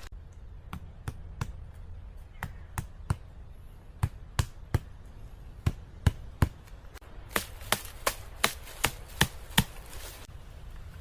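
Chopping with a blade: a series of sharp single strikes, spaced out at first and then coming in a quicker run of about three a second in the second half.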